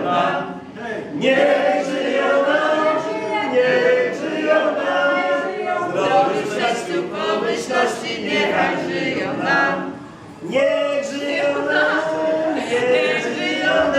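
A group of people singing together without instruments, a party song in long held notes, with brief pauses between lines near the start and about ten seconds in.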